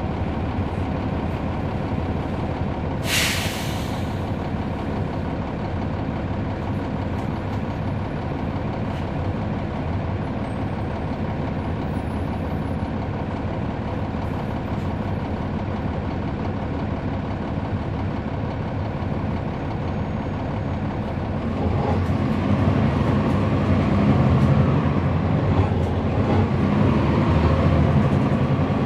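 A transit bus's Cummins ISL9 diesel engine running, heard from inside the bus. About three seconds in, a short hiss of air from the air brakes. From about 22 seconds the engine grows louder and fuller as the bus accelerates.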